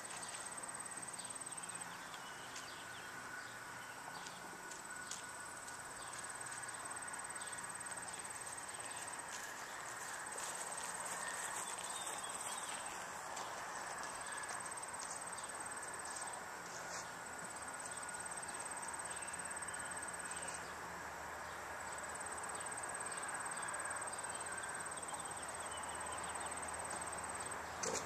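Insects trilling: one steady, high-pitched trill stops and restarts every few seconds, over a fainter, lower-pitched steady drone.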